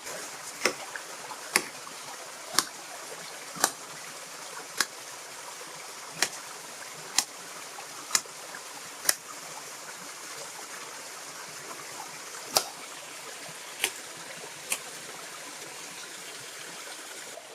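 Small waterfall flowing steadily into a pool. Over it come sharp clicks or knocks, about one a second for the first nine seconds, then a pause, then three more near the end.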